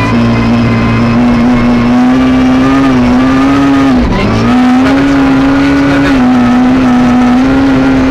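Suzuki Ignis S1600 rally car's 1.6-litre four-cylinder engine heard from inside the cabin, pulling hard at high revs through the upper gears of its sequential gearbox. The pitch holds nearly steady, with a brief sharp drop and recovery about four seconds in as it shifts up.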